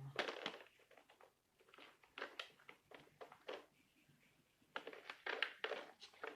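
Board game components and packaging being handled: irregular short rustles and clicks, busiest in the last second or two.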